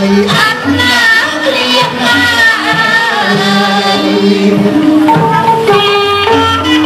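Cambodian traditional music for a blessing dance: a gliding sung or played melody over a hand-drum rhythm.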